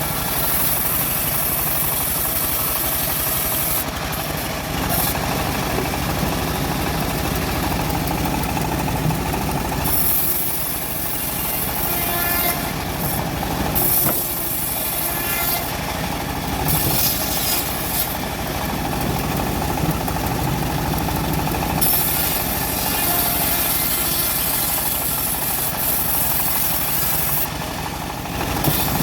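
Homemade bandsaw mill running steadily under its engine while the blade cuts through teak, with a high hiss that drops out and comes back several times.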